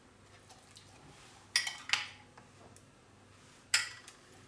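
Three sharp clinks against a glass baking dish as a whole sea bream is handled in it: two close together about a second and a half in, and one more near the end.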